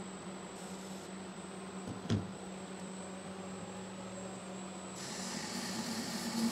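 Homemade CNC mill's spindle spinning aluminum bar stock for lathe turning, a steady hum with a constant high whine, and one short click about two seconds in. About five seconds in the turning tool starts cutting, and a louder hiss of cutting and flying chips builds up.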